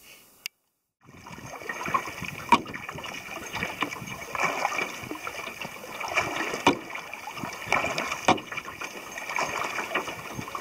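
Double-bladed paddle stroking through the water beside a lightweight pack canoe, starting about a second in: steady splashing and dripping with a sharp click or knock every second or two.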